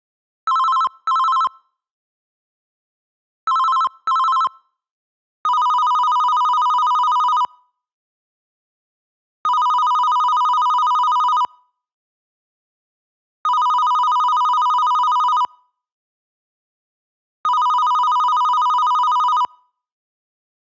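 Electronic office telephone ringing. It starts with two short double rings warbling between two pitches, then changes to four long, steady rings of about two seconds each, with equal pauses between them.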